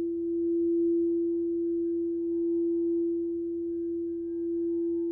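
Singing bowl holding one steady low tone with faint higher overtones, its loudness slowly swelling and easing.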